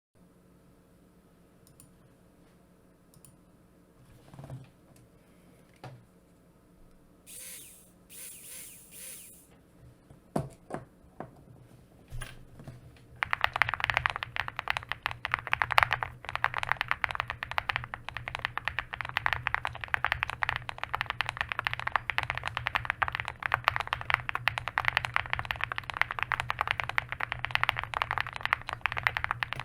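Owlab Spring mechanical keyboard with an FR4 plate, Tecsee Singularity switches and stainless-steel alpha keycaps. It starts with a few faint knocks and rustles, then fast, continuous typing begins a little before halfway in: a dense stream of key clacks.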